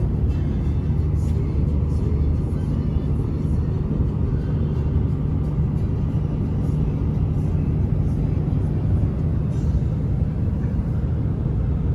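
Steady road and engine drone heard from inside a vehicle's cab moving at highway speed.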